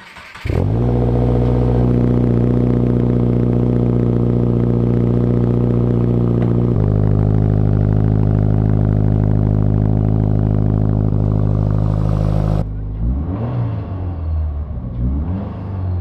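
Subaru VB WRX's 2.4-litre turbocharged flat-four with a Tomei Expreme full titanium exhaust, starting from cold: the engine catches about half a second in and settles into a loud, steady cold-start idle, and its note changes a little just before halfway. In the last few seconds a quieter engine note takes over, its pitch rising and falling.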